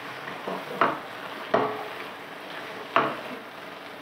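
Wooden spatula stirring and scraping courgette curry in a stone-coated nonstick pan over a low sizzle, with three sharper knocks of the spatula against the pan.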